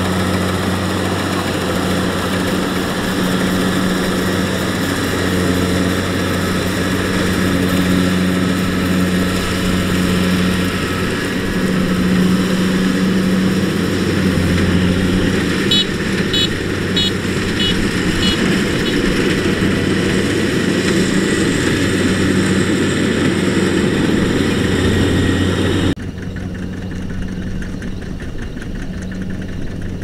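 Kubota DC-70 rice combine harvester running as it cuts the crop: a steady, loud diesel drone. About four seconds before the end it suddenly turns quieter and more distant.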